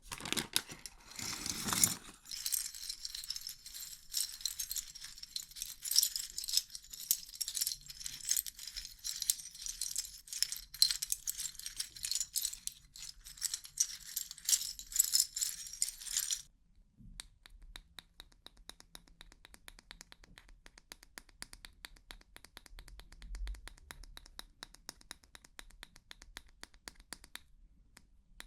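Loose plastic keyboard keycaps being shuffled and rattled together in a dense, bright clatter. About sixteen seconds in the clatter stops abruptly, and quieter rapid light clicking of plastic follows.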